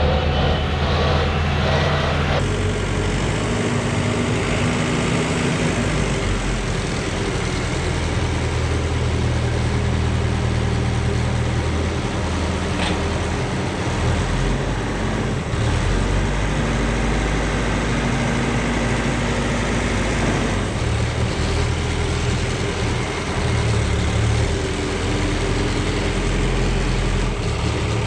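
Tractor engine running, its low hum shifting in pitch and strength several times.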